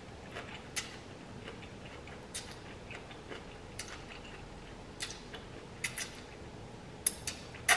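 Close-up mouth sounds of a person eating spicy ramen noodles: short wet smacks and slurps as noodles are drawn in and chewed, scattered and irregular, with a few louder ones near the end.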